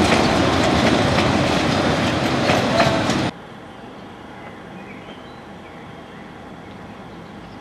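Narrow-gauge train coaches running past close by: a loud rumble with wheels clicking over rail joints and brief squeals. It cuts off abruptly about three seconds in, leaving only a quiet steady background.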